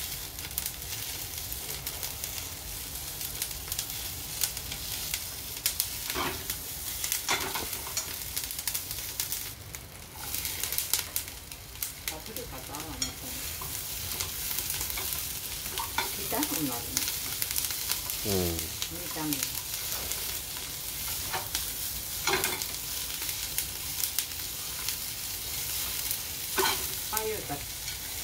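Sliced paprika and green peppers sizzling as they are stir-fried with miso in a frying pan, with a steady frying hiss and repeated scrapes and taps of the spatula against the pan.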